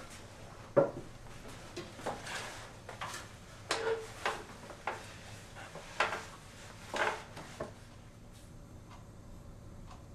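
Irregular knocks and clunks on a wooden table as a cup is set down and a laptop handled, the sharpest knock about a second in. The knocks stop after about eight seconds, leaving only a few faint taps.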